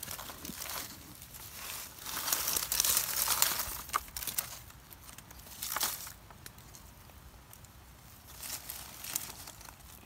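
Rustling and crinkling of cut leafy longan branches being handled on a plastic tarp, coming in bursts: the longest and loudest lasts a couple of seconds about two seconds in, with shorter ones around six seconds and near the end.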